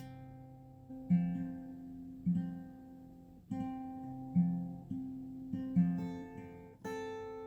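Background music: a slow acoustic guitar piece, single notes and chords plucked about once a second and left to ring out.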